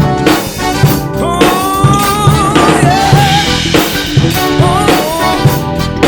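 Live band playing an upbeat song with the drum kit prominent: a steady beat of kick drum and snare hits. A held lead melody line, bending in pitch, sounds over it from about a second in to past the middle.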